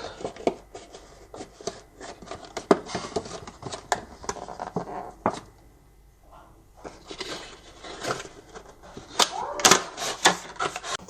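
A cardboard toy box being handled: rubbing and scraping of the card with many light taps and clicks, with a short lull about six seconds in.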